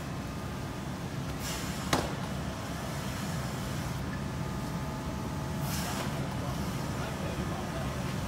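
Steady machine hum from a vacuum lifter handling boxes, with two short rushes of hissing air about one and a half and six seconds in, and a sharp click about two seconds in.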